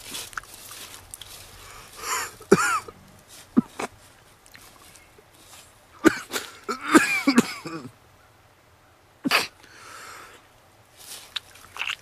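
A man gagging and coughing in several short bouts, with strained groans in between, in disgust at surströmming (fermented herring) juice.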